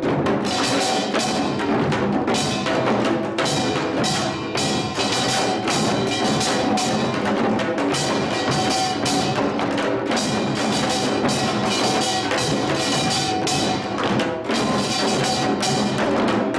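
Samulnori percussion ensemble playing: small kkwaenggwari gong and large jing ringing over janggu hourglass drum and buk barrel drum, in dense, fast beating without a break.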